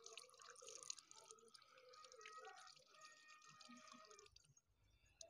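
Very faint water dripping and trickling, as from freshly washed leaves or a tap, dying away a little after four seconds in.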